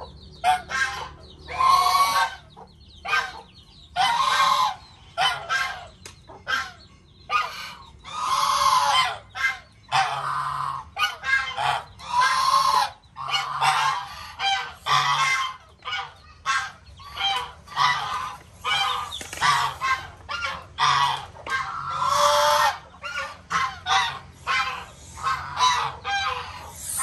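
Backyard geese honking over and over: a dense run of short honks, broken by a few longer drawn-out calls.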